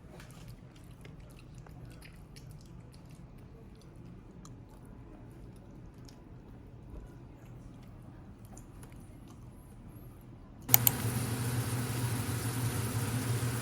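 Fried chicken being chewed, faint crunching with scattered small clicks. About eleven seconds in, a loud steady low hum with hiss starts suddenly.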